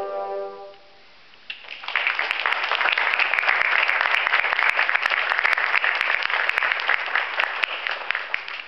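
A bassoon ensemble's final held chord cuts off, and after a short pause the audience applauds. The clapping lasts about seven seconds and thins out near the end.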